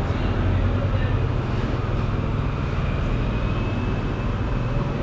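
A motor vehicle's engine running close by, a steady low rumble, amid street traffic.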